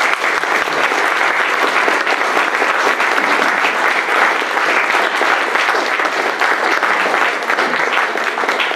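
An audience applauding: dense, sustained clapping from many hands.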